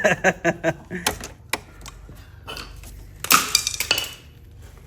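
Scattered metallic clinks and clatter of parts and tools being handled, with a brief louder rattling burst a little past three seconds in, over a steady low hum.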